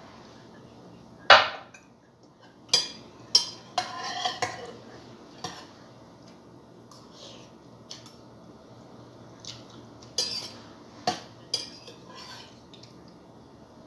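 A metal spoon clinking and scraping against a ceramic bowl while someone eats, in scattered short clicks that come in two clusters. The loudest is a single sharp knock a little over a second in.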